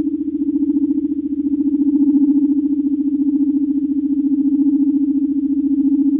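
Star Trek original series electronic sound effect: a steady, loud, low synthetic drone with a fast, even flutter and a fainter higher tone above it.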